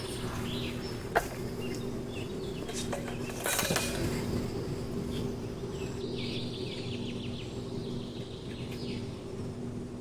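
Small birds chirping over a steady low hum, with one sharp click about a second in and a short rustle a little later.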